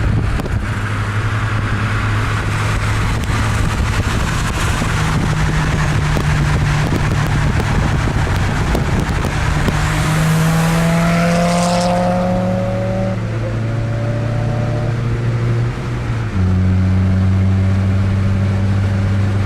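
Turbocharged 2.0-litre four-cylinder engine of a 2003 Mazdaspeed Protegé running under way at fairly steady revs, its pitch creeping slowly upward. Near the end there is a brief dip and a change in tone, after which it runs steadier and slightly louder.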